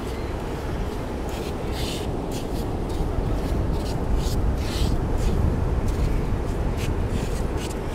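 Hands and a small scoop digging and scraping through beach sand, giving irregular short scrapes, over a steady low rumble of surf and wind.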